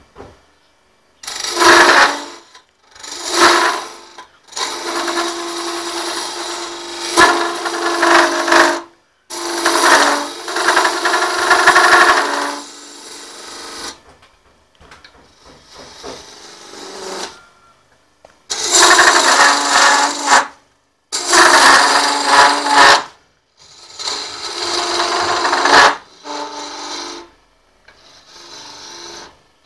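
Turning tool cutting into wood spinning on a homemade wood lathe. It comes in about eight cuts of one to four seconds, with short pauses between.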